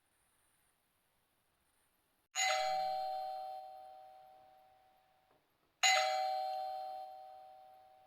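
Doorbell chime rung twice, about three and a half seconds apart. Each ring strikes two steady tones together that fade away over about three seconds before cutting off.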